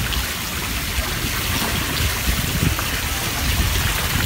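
Sea water splashing and sloshing around an outrigger fishing boat, over a steady low rumble.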